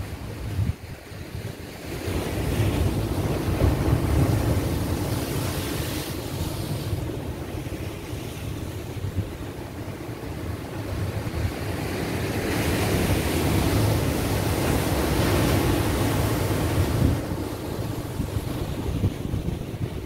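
Atlantic Ocean surf breaking and washing over a rocky shore, swelling louder twice as waves come in, with wind buffeting the microphone.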